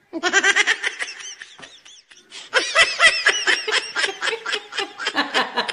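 High-pitched laughter in quick, rapid pulses, in two fits with a short pause about two seconds in.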